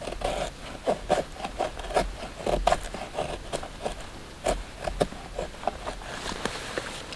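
Knife blade shaving thin curls down a split stick of dry wood, carving a feather stick for fire tinder: a run of short scraping strokes, a few each second, that thin out near the end.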